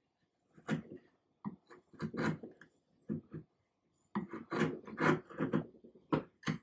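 Steel hand chisel paring and scraping old glue off a wooden chair joint around a dowel, in short, irregular scraping strokes that come thicker in the second half. The glue is being cleared so the joint will bond and close flush.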